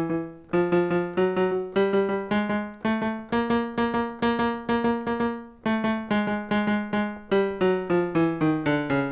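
Software piano sound played from a MIDI keyboard controller: the same two-note figure struck about three times at each step, stepping up in pitch and then back down a step at a time as the transpose is changed.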